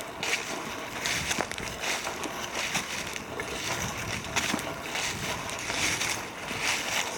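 Footsteps crunching and rustling through dry leaf litter at a steady walking pace, about a step a second.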